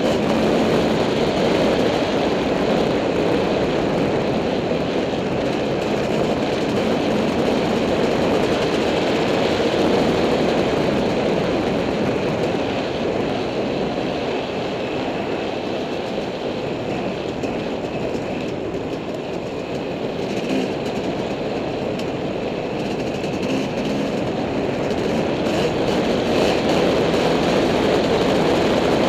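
Dirt bike engine running steadily while riding a singletrack trail, heard from the onboard camera as a dense, noisy drone. It eases off a little through the middle stretch and picks up again near the end.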